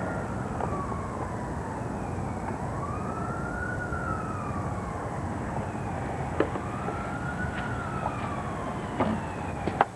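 Emergency-vehicle siren in a slow wail, its pitch rising and falling about every three and a half seconds, over steady background noise. A few light clicks and knocks sound over it.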